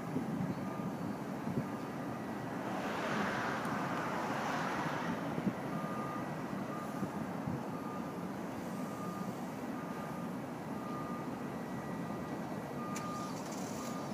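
A vehicle's reversing alarm beeping about once a second over a steady low rumble of traffic, with a louder hissing swell from about three to five seconds in.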